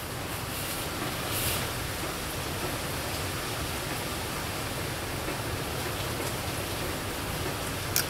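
Steady, even hiss of background noise, with no distinct event standing out.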